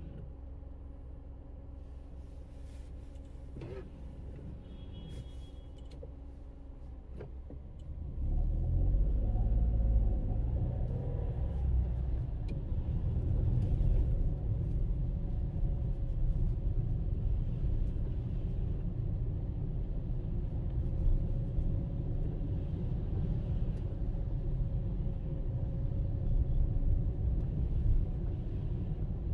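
Road vehicle's engine running with a steady low hum, then about eight seconds in it grows much louder as the vehicle pulls away and drives on, a continuous low rumble of engine and road noise.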